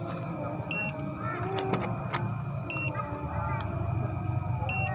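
A short, high electronic beep repeating about every two seconds, three times, over a steady low rumble and faint voices.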